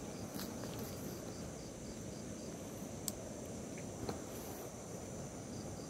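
Night insects, crickets among them, keep up a steady high trill, with pulsed chirps about four to five a second near the start, over a low steady rushing background. A single sharp click sounds about three seconds in.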